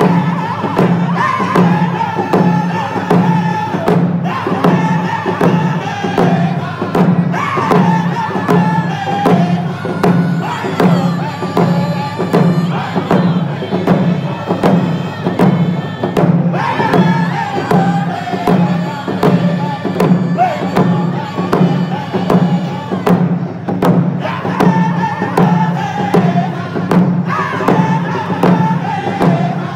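Round dance song: a group of men singing together in phrases that start high and fall, again and again, while beating hand drums in a steady even beat.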